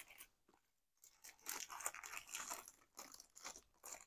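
Faint, irregular crinkling of a thin clear plastic sleeve as a card is worked out of it, busiest in the middle.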